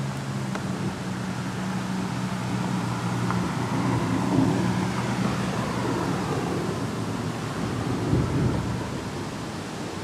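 Thunder rumbling over a steady hiss of rain. The rumble swells about two seconds in, peaks in the middle with a second surge near the end, then fades. A steady low hum runs underneath.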